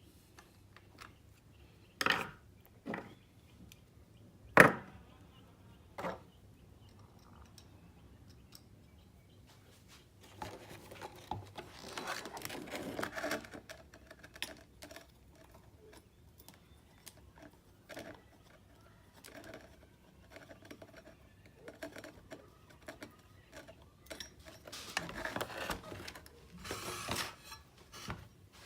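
Handling noises: four sharp knocks or clicks in the first six seconds, the loudest about four and a half seconds in, then two spells of light rattling and clicking, one around ten to fourteen seconds in and one near the end. No engine is running.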